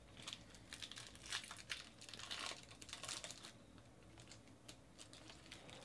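Foil wrapper of a baseball card pack crinkling and tearing as it is ripped open, densest for the first three seconds or so, then a few lighter crinkles.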